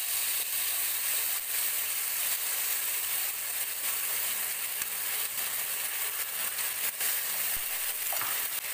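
Oyster sauce sizzling steadily as it hits hot oil in a frying pan with onions and garlic. A black spatula scrapes the sauce from the bowl and stirs the pan, with a few light clicks.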